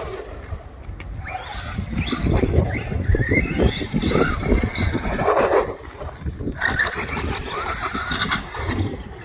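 Maverick Quantum MT Flux RC monster truck's brushless motor whining, its pitch rising and falling with the throttle several times, over a rough rumble of tyres and wind.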